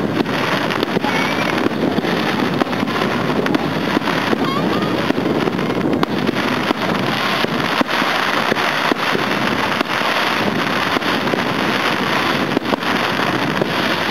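Fireworks display: a dense run of bangs and crackles, one after another, over a steady loud din.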